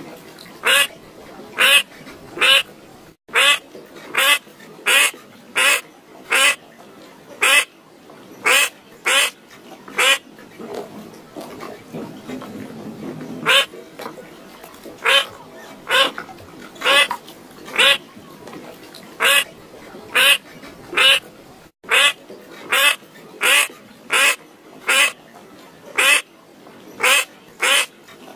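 A bird calling over and over, short calls at an even pace of about three every two seconds.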